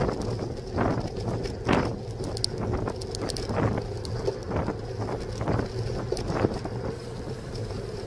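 Wind rushing over a bicycle-mounted camera's microphone as the bike rides along, with irregular knocks and rattles from the bike and camera jolting over the road surface.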